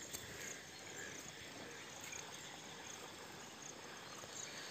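Faint insects chirping in short repeated high calls over a steady low outdoor hiss.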